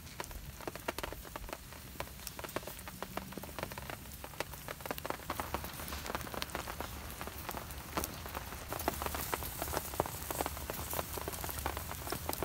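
Steady rain falling, a dense, irregular patter of drops that grows a little louder about two thirds of the way through.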